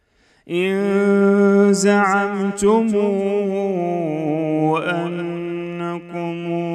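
A man reciting the Quran in drawn-out melodic tajweed style, holding one long sustained syllable that starts about half a second in, wavers, and steps down in pitch during the second half.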